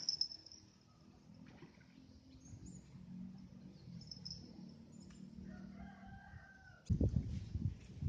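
A rooster crowing once, faintly, about five seconds in, after faint high chirps. About seven seconds in, a loud low rumbling noise starts and carries on.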